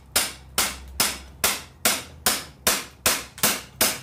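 Hammer striking a hand impact driver seated in a rusted Phillips screw, to shock it loose: about ten sharp metallic blows at a steady two and a half a second, each ringing briefly.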